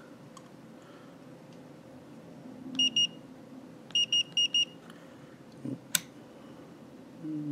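Fluke 17B+ digital multimeter beeping as its front-panel buttons are pressed: two short high-pitched beeps, then four quick beeps about a second later. Near the end comes a single sharp click of the rotary dial being turned.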